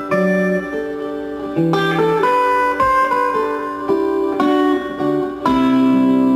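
A guitar playing an instrumental piece: plucked melody notes ringing over held lower notes.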